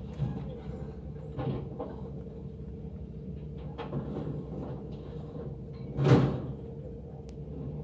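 Mercedes-Benz garbage truck with a Faun Rotopress body running steadily while bins are emptied into its rear hopper. Scattered knocks of bins and lids come through, and one loud crash lasts about half a second, about six seconds in.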